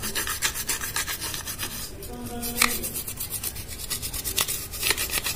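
Toothbrush bristles scrubbing a TV circuit board wet with cleaning chemical: quick, light back-and-forth strokes, several a second, lifting carbon deposits off the board.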